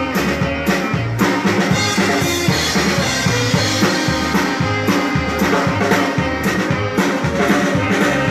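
Texas Czech dance band playing live, with brass instruments over a drum kit keeping a steady beat.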